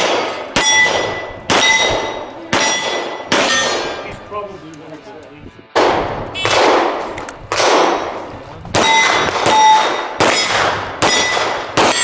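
Pistol shots fired in quick succession, each one followed by the ring of a steel plate target being hit, at about one shot a second. The string breaks off briefly near the middle, then another string of shots and steel rings starts.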